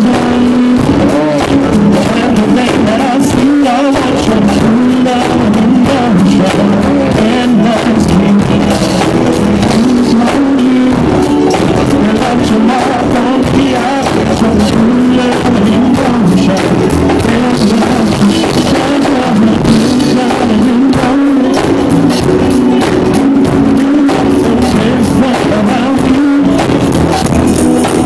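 Live band playing loudly, with a drum kit, guitar and singing voices.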